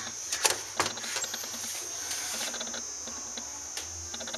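A few sharp clicks and knocks, about half a second and a second in and again near the end, with light ticking between them: handling noise close to an electric pressure cooker's pot. A steady high-pitched whine runs underneath.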